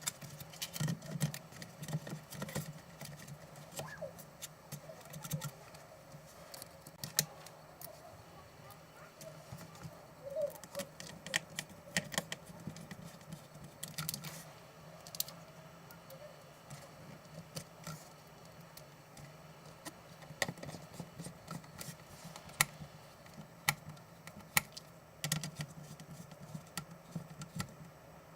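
Irregular small clicks, taps and rattles of laptop parts and small hand tools being handled during a laptop disassembly, over a faint low hum.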